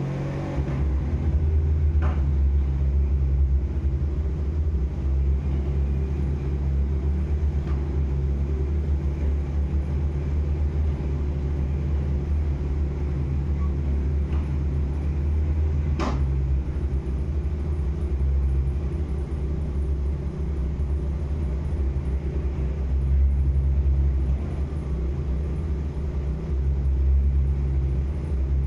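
A motor running with a steady low hum and rumble, with a couple of faint clicks about two seconds and sixteen seconds in.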